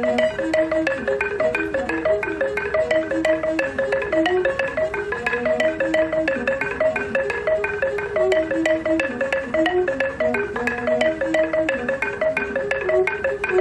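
Background music: a fast, steady run of struck mallet-percussion notes, xylophone-like, playing a repeating melodic pattern.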